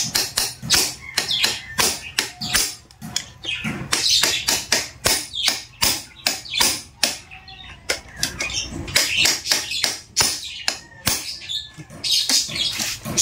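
Repeated hammer blows on a screwdriver set against a STIHL-type chainsaw's clutch, about three sharp knocks a second with a few short pauses, driving the clutch round to unscrew it while the piston is blocked with rope so the crankshaft cannot turn.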